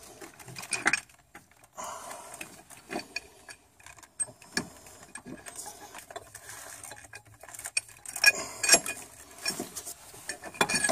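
Metal clinks, scrapes and knocks as a metal engine mount bracket is worked loose and pulled out past the timing belt and engine parts, with a few louder knocks toward the end.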